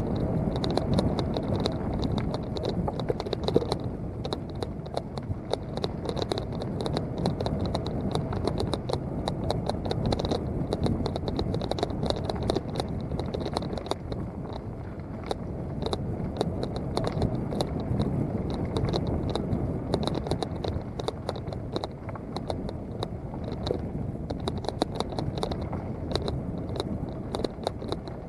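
Mountain bike riding fast down a leaf-covered dirt trail: knobby tyres rumbling and crunching over the ground, with dense rattling and clicking from the bike over the bumps.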